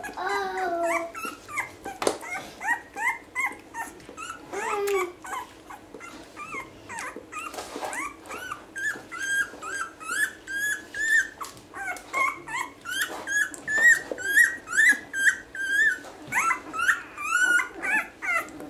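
One-week-old basset hound puppies squeaking and whimpering, short high-pitched squeaks that come scattered at first, then in a quick run of about two or three a second through the second half.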